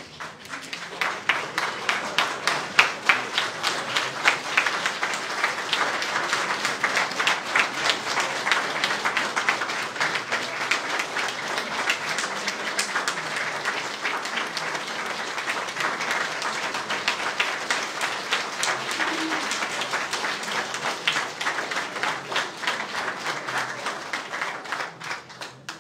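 A roomful of people applauding, many hands clapping together in a dense, irregular patter. It builds about a second in, holds steady, and stops just before the end.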